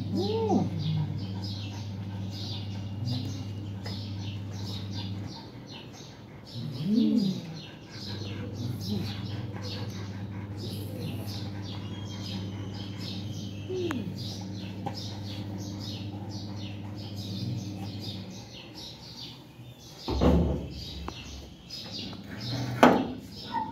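Small birds chirping throughout over a low steady hum that drops out briefly about five seconds in and again past the middle. A few low rising-and-falling calls stand out, the loudest about seven seconds in, and near the end come knocks and rustles from the phone being handled.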